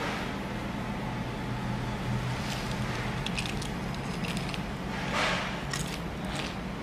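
Crunching and chewing of a crispy fried chicken strip close to the microphone, a series of short crackly crunches around the middle and near the end, over a steady low hum.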